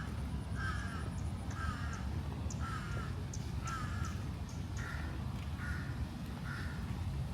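A crow cawing over and over, about one short caw a second, eight calls that stop shortly before the end, over a steady low rumble.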